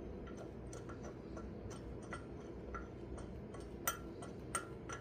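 Light, irregular metallic clicks and ticks of painted bolts being worked into the holes of a tractor wheel hub, with two sharper clicks near the end.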